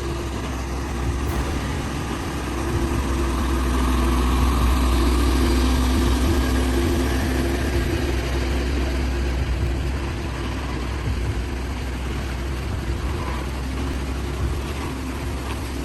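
Heavy truck engine running steadily, growing louder a few seconds in and then easing back.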